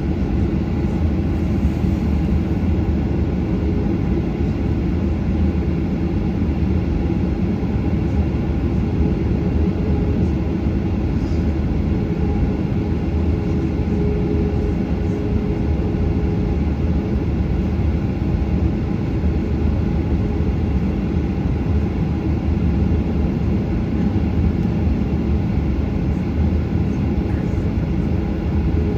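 Boeing 737 engine and airflow noise heard inside the passenger cabin: a steady, even low noise that neither rises nor falls.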